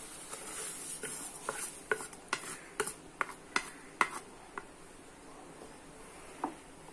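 A wooden spatula knocking and scraping against a ceramic plate and the rim of a steel pan as roasted vermicelli is pushed off into boiling milk: a quick run of sharp clicks over a few seconds, then one more knock near the end as stirring begins.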